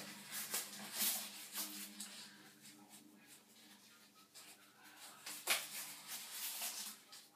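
Soft rustling and handling sounds close to the microphone, with a few sharper clicks, one about a second in and one past five seconds.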